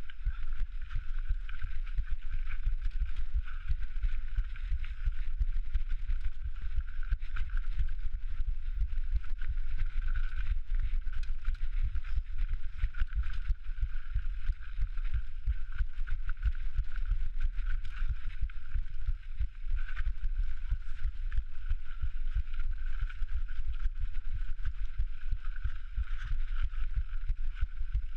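Dense, low thumping and rumble from a mountain bike ride down a rocky technical trail, picked up by a microphone meant to record the rider's heartbeat. A steady high tone runs underneath.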